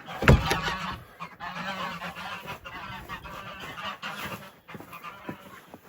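Domestic geese honking, many short calls overlapping in a continuous clamour. A sharp thump sounds right at the start.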